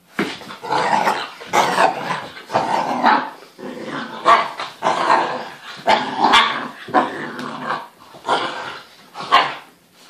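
Dogs play-growling and barking during rough play, a whippet and a saluki puppy: a string of about a dozen short, loud growls and barks in quick succession.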